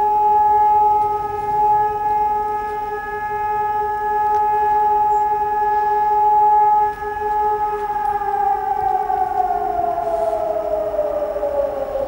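Civil-defence warning siren sounding one steady tone, then slowly winding down in pitch from about eight seconds in.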